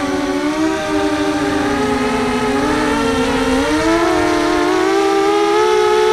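Electric motors of an FPV racing quadcopter whining in flight, several pitches at once. They sink over the first few seconds, climb again about four seconds in, and then hold steady.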